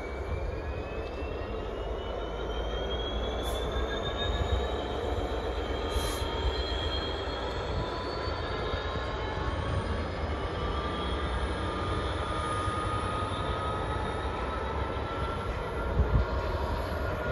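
Freight train of empty flat wagons rolling past behind a diesel locomotive: a steady rolling rumble with thin wheel squeals that slowly rise in pitch.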